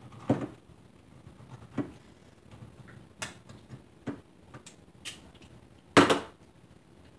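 Irregular knocks and clicks of things being handled and set down on a kitchen counter, about six in all, the loudest a sharp thump about six seconds in.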